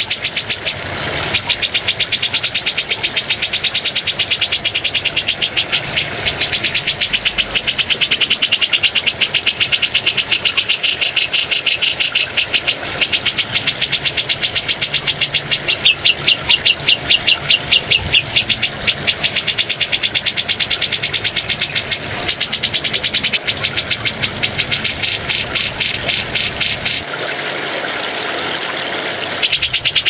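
Grey-cheeked bulbul (cucak jenggot) giving long runs of rapid, rattling chatter, many pulses a second, over a steady hiss of running water. The chatter breaks off briefly near the end, leaving mostly the water.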